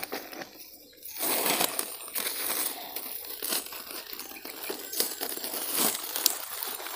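Plastic sack and dry grass crinkling and rustling as they are handled, starting about a second in, with a few sharper crackles.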